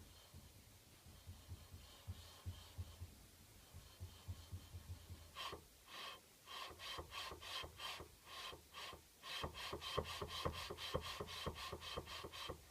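Noise from a car's rear right suspension, which the owner suspects of knocking. Faint low knocks come first, then from about five seconds in a fast run of rubbing squeaks, about three to four a second, that grows louder near the end.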